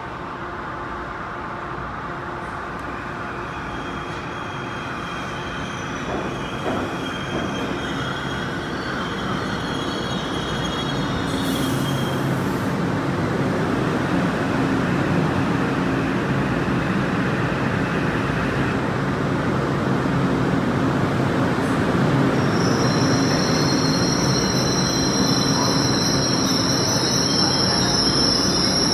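Metro-North M8 electric multiple-unit train pulling into an underground platform, its rumble growing louder as it comes in. Its wheels squeal in high, shrill tones, faintly at first and strongest in the last several seconds.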